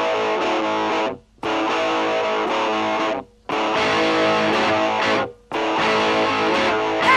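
Rock song intro: a distorted electric guitar plays a chord phrase four times, each held about a second and a half and then cut off into a short gap. The full band comes in at the very end.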